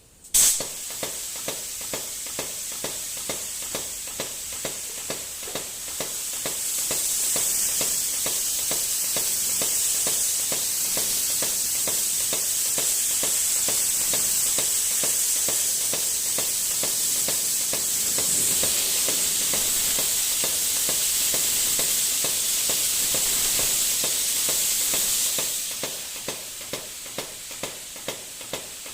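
Minimum quantity lubrication (MQL) spray system running: a steady hiss of compressed-air lubricant mist with regular ticks about twice a second from the pulsing lubricant pump. The hiss starts suddenly and gets louder from about six seconds in until near the end, when it drops back.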